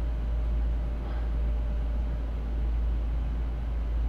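Room tone: a steady low rumble with a faint, even electrical hum.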